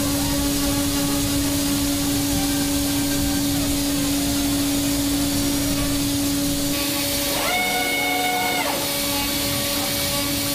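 CNC milling machine cutting a metal cylinder head: a steady spindle hum under a hiss of cutting noise. The sound changes about two-thirds of the way in, and a higher held tone sounds for about a second soon after.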